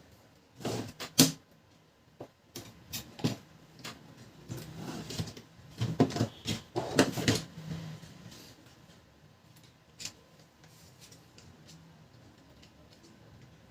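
Clicks, knocks and rattles of laser printer parts being handled and taken apart by hand, busiest over the first eight seconds, then only an occasional click.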